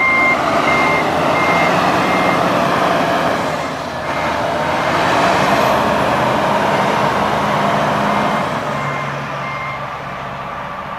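A John Deere motor grader's backup alarm beeping about once every two-thirds of a second as the grader backs up, over its diesel engine running. The beeps are clear for the first couple of seconds, fade under the engine, and come back faintly near the end.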